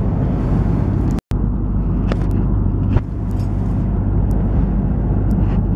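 Steady roar of an Airbus A330 cabin in flight, airflow and engine noise with a low hum underneath. It drops out for an instant about a second in, at an edit.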